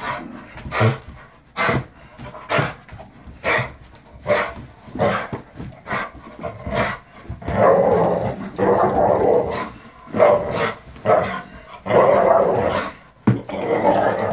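Rhodesian Ridgeback barking repeatedly in short, sharp barks, then growling in longer, rougher bursts from about halfway through, while playing tug with a cloth toy.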